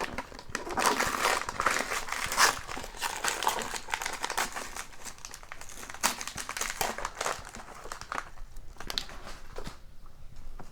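Christmas wrapping paper being torn off a gift-wrapped box and crumpled, a dense crinkling and tearing that thins out near the end.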